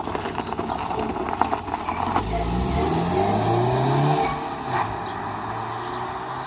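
Car engine accelerating hard, its pitch climbing in several steps like upshifts, with a sharp click near the end.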